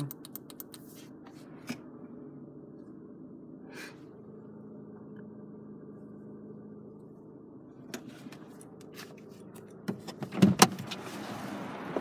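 Vauxhall Corsa 1.4 16V four-cylinder petrol engine idling in Park, heard inside the cabin as a steady low hum, with a few light clicks in the first couple of seconds. About ten seconds in, a short run of loud clunks as the car door is opened, and a broader noise from outside rises after it.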